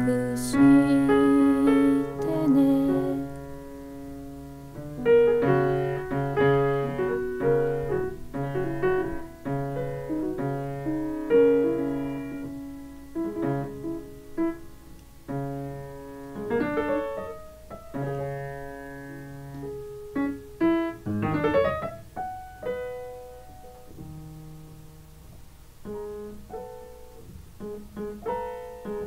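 Instrumental piano music: separate notes and chords that ring and fade at an unhurried pace, with a quick run of notes about two-thirds of the way through.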